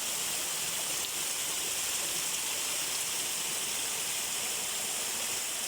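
Spring water gushing from a rock under strong pressure and splashing down, a steady rushing sound.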